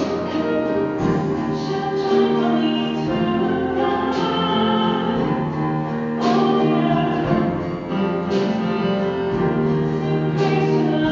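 Live church ensemble music: singers with guitar, bass guitar and drums performing a sung psalm setting, its held chords changing about every two seconds.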